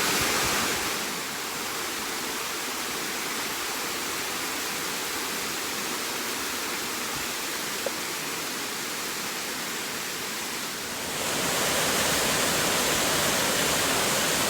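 Steady rushing of a large waterfall, Apple Orchard Falls, falling water heard up close. It drops a little in level about a second in and grows louder again about eleven seconds in.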